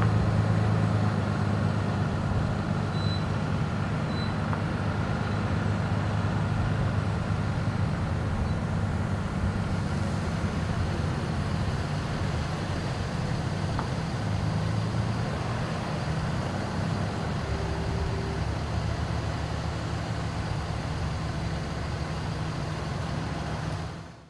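Heavy trucks' diesel engines running slowly in an oversize-load convoy: a steady low drone with road noise over it. The engine note shifts about two-thirds of the way in, and the sound fades out at the very end.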